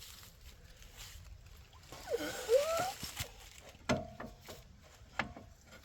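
Metal knocking on metal as tools and strut hardware are handled during front suspension work. There are two sharp clinks, one about four seconds in and another a second later, each with a short metallic ring, after a rising squeak near the two-second mark.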